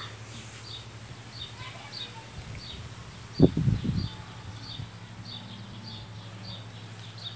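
Outdoor rural ambience: a short high chirp repeating about twice a second over a low steady hum, with a brief low thump and rumble about three and a half seconds in.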